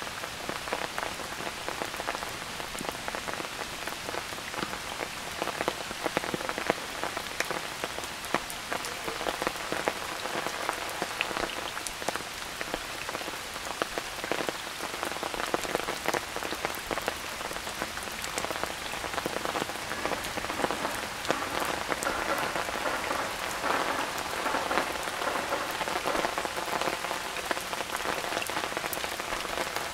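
Steady rain falling, with a dense patter of individual drops hitting nearby surfaces.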